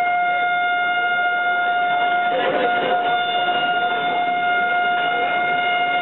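A train horn held as one long, unbroken tone over the clatter and rumble of goods wagons rolling past on the track, with a brief louder rattle about two and a half seconds in.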